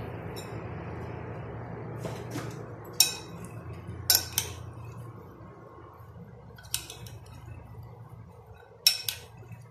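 A metal spoon clinking against a glass bowl as chopped boiled potato, tomato and black chickpeas are stirred together. There are about half a dozen sharp clinks, some in quick pairs, over a low steady hum.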